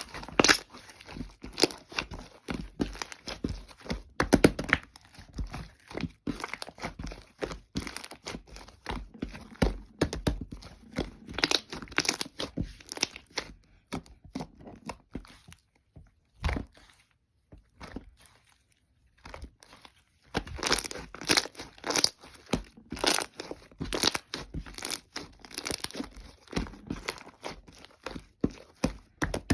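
Bubbly slime being pressed, stretched and folded by hand: a dense, irregular crackle of small sticky pops as trapped air bubbles burst, with a pause of a few seconds a little past the middle.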